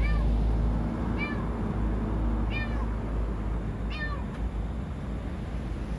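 A cat meowing, four short meows about every second and a half, over a steady low rumble. The cat is trapped in the underside of a parked pickup truck and crying.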